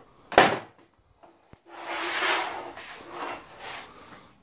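A sharp knock about half a second in, then a few bursts of scraping and rubbing as things are handled and moved about on a metal workbench.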